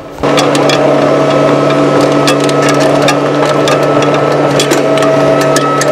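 Caterpillar 305E2 CR mini excavator's diesel engine and hydraulics running steadily, heard loud from the cab, with a steady whine over the engine noise and frequent sharp clicks and clanks as a concrete block is carried on a chain from the bucket.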